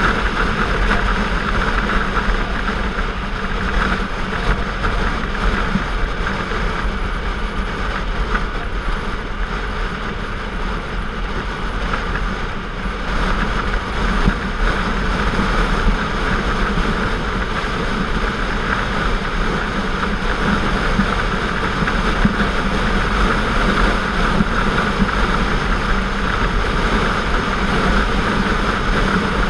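Motorcycle engine running at a steady cruising speed with wind rushing over the camera's microphone, a continuous loud drone that barely changes.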